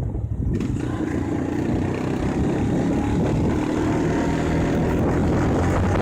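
A motor running steadily, a low rumble with a faint hum through it.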